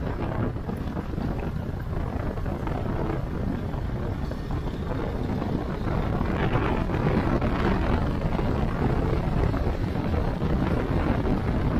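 Wind buffeting the microphone on a moving Hero Xpulse 200 motorcycle, over the steady run of its single-cylinder engine. The wind grows louder about six seconds in as the bike speeds up.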